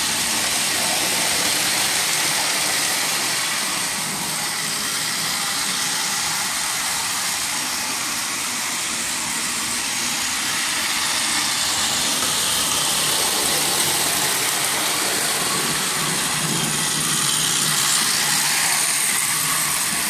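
Power Trains motorised toy train running on plastic track: a steady whir of its small electric motor and wheels.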